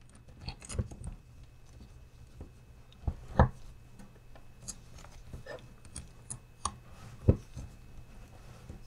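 Small plastic clicks and knocks as the wheels of a Traxxas TRX-4M mini crawler are handled and pushed onto the front axle's hubs, with louder knocks about three and a half seconds in and again about seven seconds in.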